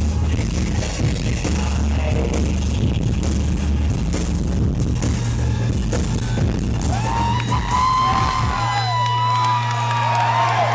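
Live industrial music over a concert PA: a dense, heavy electronic beat with deep bass. About eight seconds in the beat drops out, leaving a steady low synth drone while the crowd whoops and yells.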